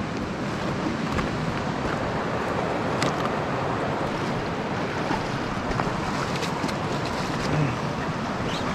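Steady rushing noise of river water, with wind on the microphone.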